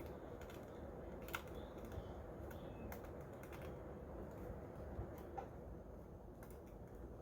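Faint, scattered light clicks and taps of hands handling a plastic toy RC car.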